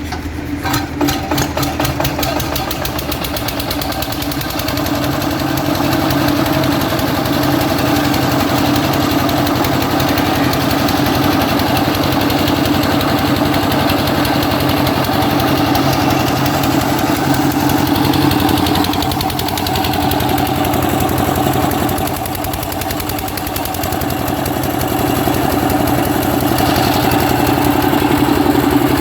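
A 7.5 kVA generator set's engine running, uneven for the first couple of seconds and then settling into a steady run.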